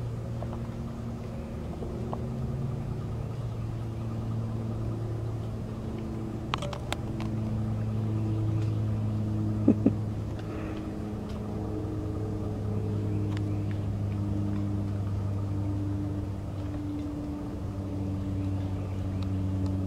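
Steady low engine hum whose pitch drifts slowly, with a few faint clicks near the middle.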